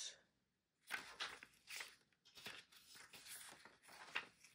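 Faint rustles and crinkles of an album's glossy paper lyric booklet being handled and its pages turned, with a louder rustle about four seconds in as a page is flipped.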